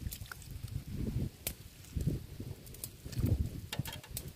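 Metal soup ladle clicking and scraping against a metal wok as broth is scooped from a pot of sour soup with vegetables. Several sharp clicks stand out over low, uneven rumbling.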